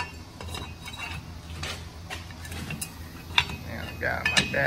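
Scattered metallic clicks, clinks and rattles of rusty parking-brake shoes, springs and hardware being handled against the rear brake backing plate.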